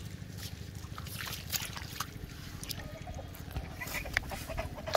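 Shallow floodwater sloshing and splashing over grass as a fish is pinned with a many-pronged spear and grabbed by hand, with scattered sharp splashes and clicks over a low steady rumble.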